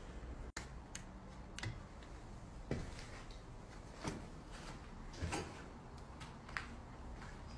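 Faint, irregular knocks and clicks, about six over several seconds, against a low background hiss.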